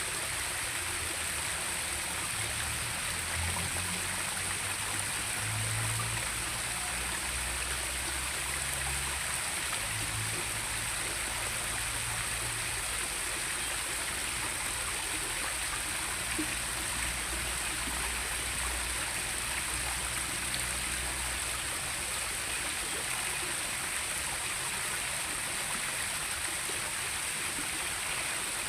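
Steady rush of flowing stream water, with a constant high-pitched hiss over it and some low rumbling now and then.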